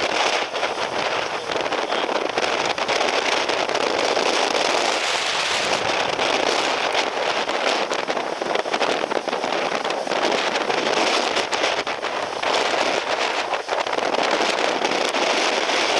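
Typhoon-force wind buffeting the microphone in a steady, loud rush, with constant crackling.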